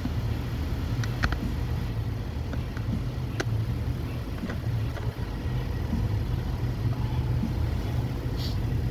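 2021 Nissan Sentra's engine idling steadily, running again now that the missing low-pressure fuel pump fuse has been replaced. A few light clicks sound over it.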